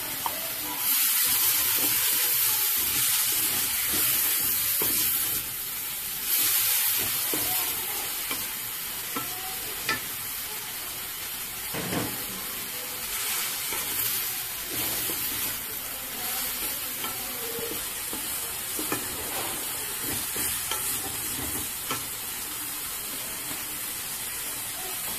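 Dried kachki fish frying in oil with onions and green chillies in a metal pan, sizzling as a wooden spatula stirs and scrapes it, with scattered clicks of the spatula against the pan. The sizzle is loudest for the first several seconds after the fish goes in, then settles to a steadier hiss.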